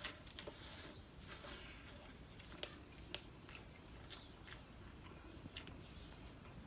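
A man chewing a mouthful of sloppy joe sandwich on a soft bun: faint, irregular small clicks of chewing over a low steady hum.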